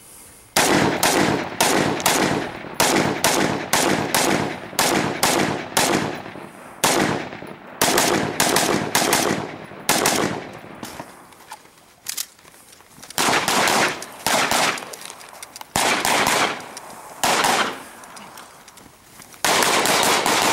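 Rapid semi-automatic rifle fire: strings of single shots about two to three a second, each with a short echo, broken by several pauses of one to two seconds.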